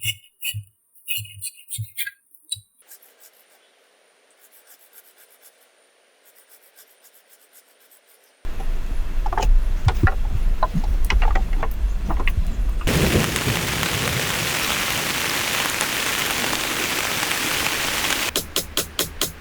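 A few sharp knocks, then heavy rain starts suddenly, first with a deep low rumble and then as a loud, even hiss. A steady rhythmic beat comes in near the end.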